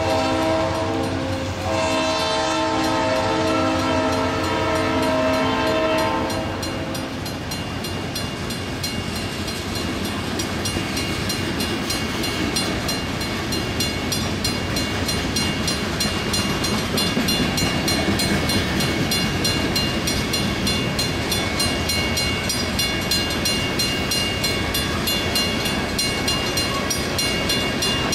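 Diesel locomotive horn sounding, a long chord that breaks off briefly near the start and stops about 6 s in. Freight cars roll past close by throughout, a steady rumble with a fine regular clatter of wheels on the rails.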